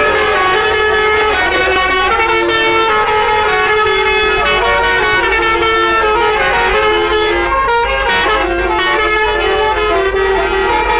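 Basuri-type telolet multi-trumpet air horn on a tour bus playing a tune of held notes that change every half second or so, with a low rumble underneath.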